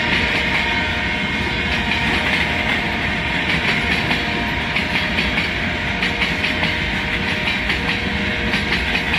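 Freight train cars rolling past on the rails, a steady loud rumble and hiss with the wheels clicking irregularly over the track.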